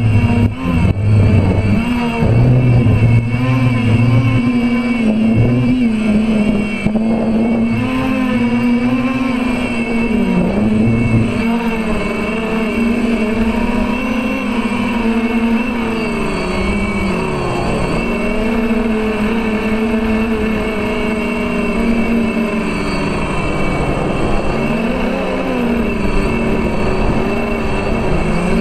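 The four brushless motors and propellers of a DJI F450 quadcopter droning, heard from its own onboard camera, their pitch wavering up and down with the throttle and dipping sharply twice in the second half. Wind rushes over the microphone underneath.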